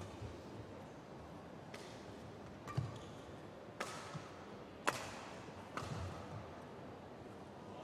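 Badminton rackets striking the shuttlecock during a rally: five sharp cracks about a second apart, the loudest about five seconds in, over a faint steady arena murmur.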